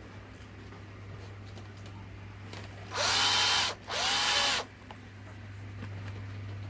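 Hitachi FDS 12DVC cordless drill running on a rebuilt 12.6 V lithium battery pack, triggered twice in quick succession: each time the motor spins up with a rising whine and runs steadily for under a second before stopping.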